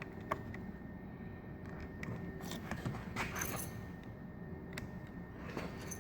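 Faint scraping and a few light clicks of plastic parts being handled as a replacement car side-mirror glass is pressed into its housing.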